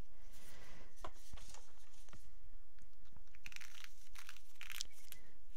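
Faint rustling and a few light plastic clicks and scrapes as the small bottles and screw caps of an epoxy resin kit are handled, over a low steady hum.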